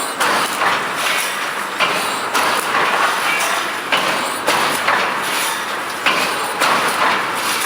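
Mechanical wire mesh welding machine for 3–6 mm wire running, a noisy mechanical cycle repeating evenly about twice a second.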